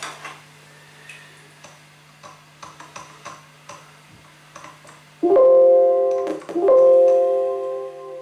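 A loud, sustained electronic keyboard chord, several steady notes held together, starts about five seconds in, breaks off briefly and sounds again, fading near the end. Before it come small scattered clicks, over a steady low amplifier hum.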